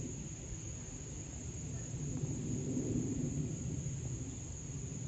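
Distant low rumble of an Airbus A319-111's jet engines passing overhead, swelling a little about three seconds in. A steady high-pitched insect buzz runs under it.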